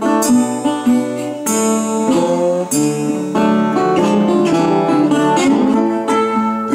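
A live blues band plays an instrumental break with acoustic guitar to the fore: plucked and strummed blues licks, with no singing.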